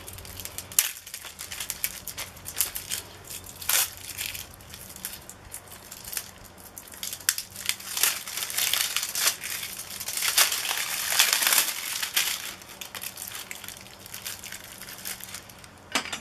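Clear plastic bag crinkling and crackling as it is handled, in irregular bursts that are busiest about halfway through.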